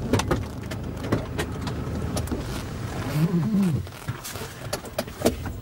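Car cabin sounds as a door is opened and a passenger climbs out: the car's low steady hum with clicks and knocks from the door and seat. The hum fades about four seconds in.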